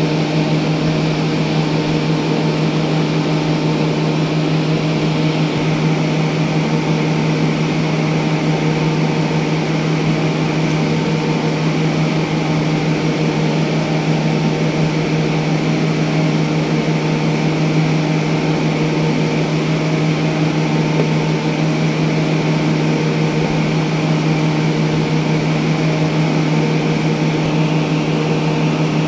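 Steady mechanical drone: a constant low hum with overtones above it over an even hiss, unchanging throughout.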